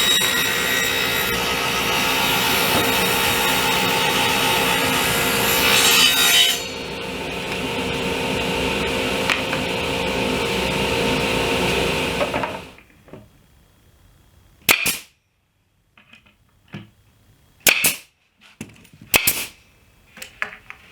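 Table saw cutting a rabbet along a melamine panel. The cut ends about six seconds in, and the blade runs on freely until the saw shuts off and dies away about twelve seconds in. A few sharp, short snaps follow.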